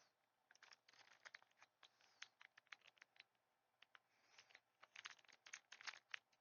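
Faint crinkling and crackling of a Pokémon booster pack's foil wrapper being handled and pulled at while someone tries to tear it open, in two runs of quick crackles with a short pause between them.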